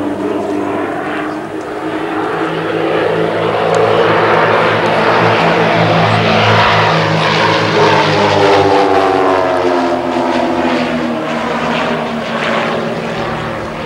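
Propeller engines of three aerobatic Pitts Special biplanes flying in formation, running at high power. They grow louder as the planes pass, and their pitch falls from about eight seconds in as they pull away.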